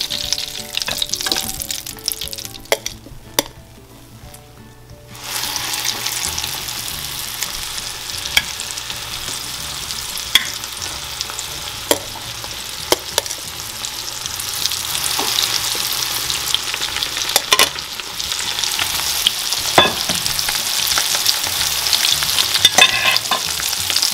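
Egg-coated dried fish frying in hot oil in a skillet: a steady sizzle that drops off briefly and rises sharply again about five seconds in. Scattered sharp clicks of utensils on the pan and bowl are heard throughout.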